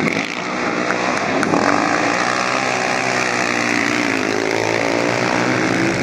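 Several racing quads' engines running hard at high revs together, the pitch wavering up and down as they accelerate through the bends.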